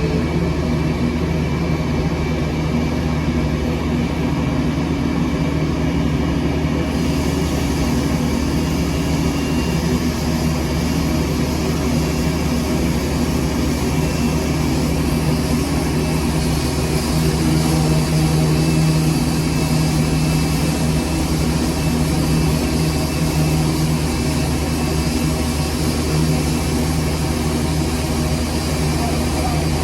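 Boeing 787-8 jet engines running steadily: a low drone with steady tones under a wide hiss, which grows brighter about seven seconds in.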